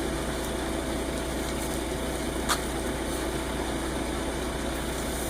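Concrete mixer truck's diesel engine running steadily, with one short click about two and a half seconds in.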